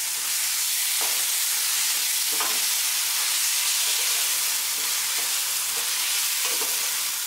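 Vegetables and sauce sizzling in a hot frying pan while a spatula stirs and tosses them, with short scraping strokes against the pan every second or so over the steady sizzle.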